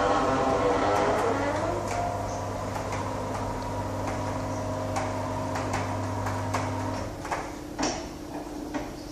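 Gate moving and making noise: a squeal that falls in pitch over the first two seconds, then a steady hum with irregular clicks and ticks, and a few clunks about seven to eight seconds in as it stops.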